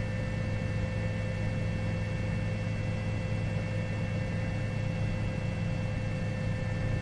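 Steady drone of a helicopter's engine and rotor heard from on board, a low hum with a few steady whining tones above it.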